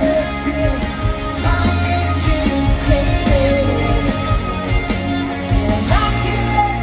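Live pop-rock band performing a song: a lead vocal singing over steady drum hits and heavy bass.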